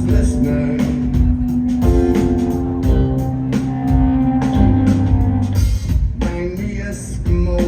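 Live rock band playing an instrumental stretch of a song, with drum kit and guitar over a held low note.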